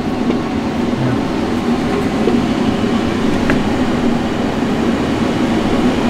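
Steady, loud rushing hum of running ventilation machinery: air scrubbers and a duct blower moving air. There is a faint click about three and a half seconds in.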